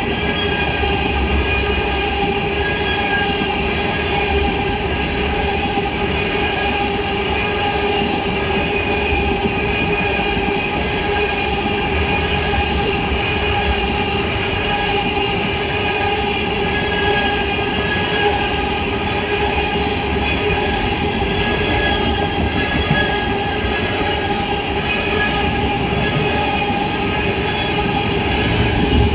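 Empty ethanol tank cars of a freight train rolling steadily past: a constant rumble of wheels on rail, with steady high-pitched ringing tones above it.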